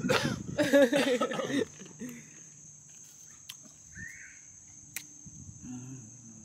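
Crickets giving a steady high-pitched drone, with a loud, wordless burst of a person's voice in the first second and a half.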